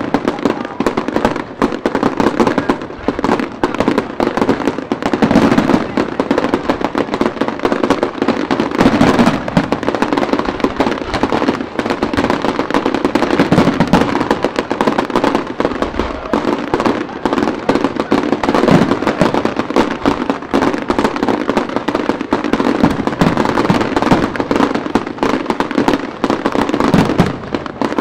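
Aerial fireworks display going off in a dense, continuous barrage of bangs and crackles with no real pause between bursts.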